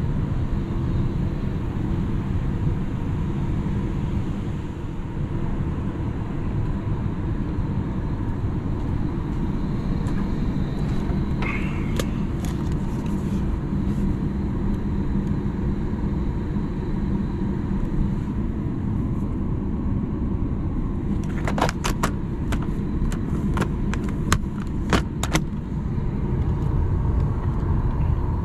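Steady low rumble of airflow inside a parked Boeing 737 MAX cabin, its air conditioning running with the cabin lights and seat-back screens powered. A run of sharp clicks comes about three-quarters of the way through.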